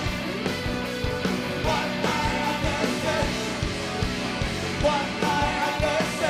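Live rock band playing with a steady, driving drum beat under pitched instrument lines.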